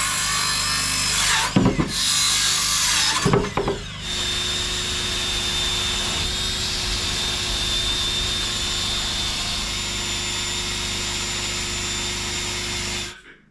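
Cordless circular saw cutting through a wooden board in two loud runs, with knocks between them. Then, about four seconds in, a Makita cordless drill fitted with a sanding disc runs steadily against the end of the board with a constant whine, and stops shortly before the end.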